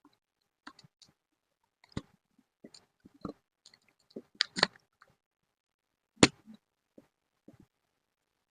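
Scattered clicks, taps and light knocks of craft supplies being handled on a tabletop during scrapbooking, with one sharp, loud click about six seconds in.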